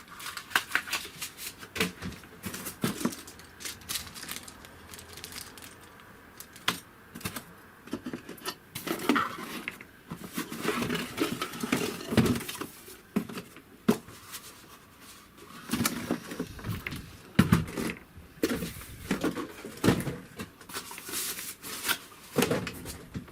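Hot air station parts and packaging being handled and unpacked: irregular clicks, knocks and rustling of small hard pieces such as metal nozzles, in a few busier clusters.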